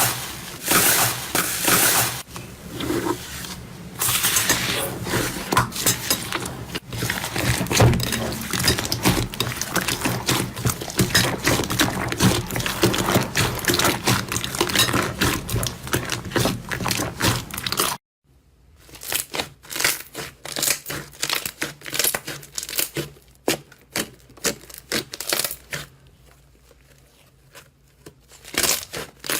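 Slime being squeezed and stretched by hand, giving dense sticky clicking and crackling. A second, sparser run of wet clicks and pops starts about 18 seconds in and is quieter near the end.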